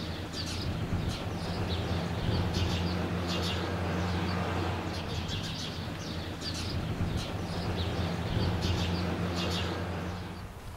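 Small birds chirping in quick, irregular calls over a steady low hum.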